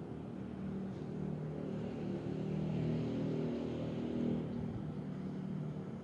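Running National CS-C12BKN 1.5 PK split air conditioner indoor unit: its blower fan gives a steady hum that swells louder for a couple of seconds in the middle.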